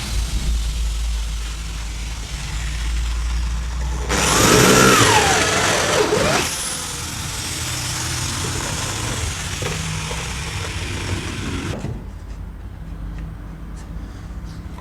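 A wood lathe's motor runs with a steady low hum. For about two seconds near the middle a louder noisy passage comes in, with a whine that rises and then falls in pitch.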